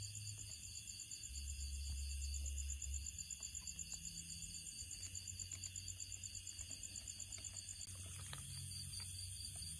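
Chorus of crickets and other insects trilling steadily at several pitches, one of them in a fast, even pulse, with a low rumble underneath.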